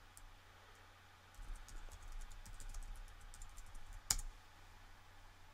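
Faint computer keyboard typing: a quick run of soft key clicks lasting a few seconds, ending with one sharper click.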